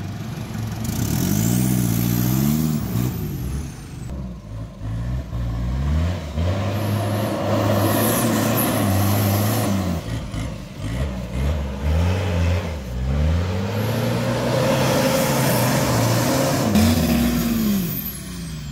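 Off-road 4x4 engines revving up and down hard under load as they climb steep muddy slopes. Their pitch rises and falls over and over, and the sound changes abruptly twice as a different vehicle takes over.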